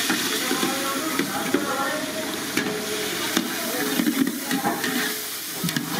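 Water poured from a steel bowl into a large aluminium cooking pan over a wood fire, splashing over a steady hiss.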